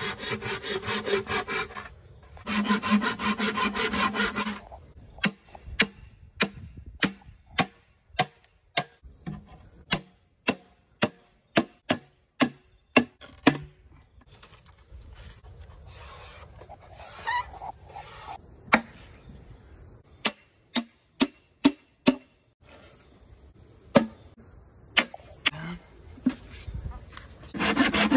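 Saw rasping back and forth through a thick green bamboo cane. It is followed by a long run of sharp knocks, about two a second, as a hatchet is struck into the cane to split it lengthwise. After scattered further knocks, the sawing strokes start again near the end.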